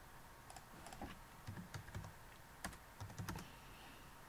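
Faint, irregular keystrokes on a computer keyboard, a scattering of short clicks.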